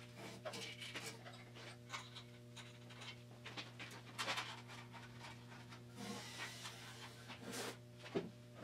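Faint rustling and scattered light clicks of gloved hands handling a steel car frame, over a steady low hum.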